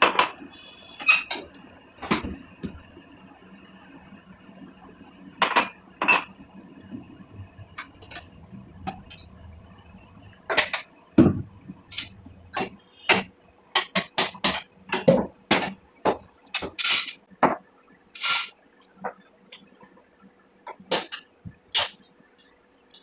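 Kitchenware being handled: pots, pans and utensils clinking and knocking in an irregular series of sharp clanks, busiest in the middle stretch, as tea is being made.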